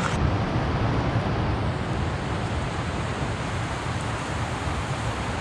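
Steady rushing of river rapids over rocks, an even noise without breaks.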